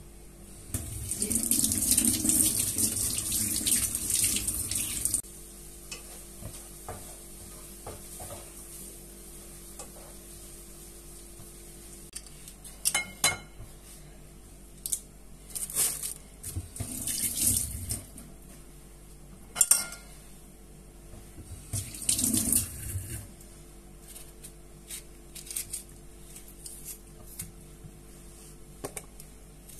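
A kitchen tap runs for about four seconds, starting and stopping abruptly, and later briefly twice more. Between and after the runs come scattered sharp knocks of a knife and dishes on a plastic cutting board.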